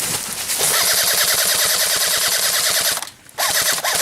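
Airsoft electric gun firing on full auto: a long burst of about two and a half seconds starting just after the beginning, a brief pause, then a short burst near the end, its gearbox cycling as a fast rattling buzz.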